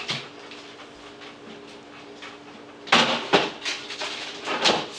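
Kitchen handling noises: a cluster of short rustles and knocks starting about three seconds in, over a steady low hum.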